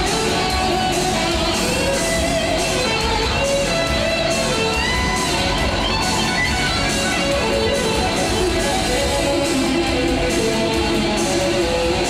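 Hard rock band playing live, with loud electric guitars over bass and drums and a bending, melodic guitar line on top.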